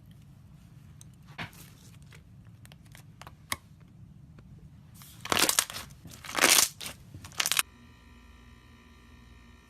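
Slime being handled and squeezed: a couple of single pops, then from about five seconds in a few loud stretches of squishing noise that stop abruptly.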